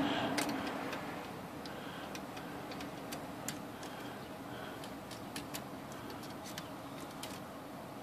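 Light, irregular metal clicks as needle-nose pliers bend a typebar link and tap against the steel typebars of a typewriter's type basket.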